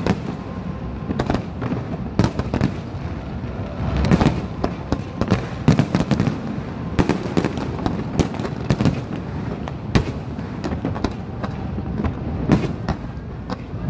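Aerial fireworks display: shells bursting one after another, many sharp bangs at irregular intervals, several a second at the busiest moments, over a continuous low rumble.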